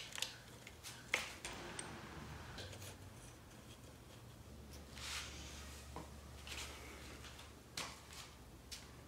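Faint clicks and rubbing of metal parts handled by hand as an outboard's fuel rail is fitted back onto the engine, with a sharper click about a second in and another near the end.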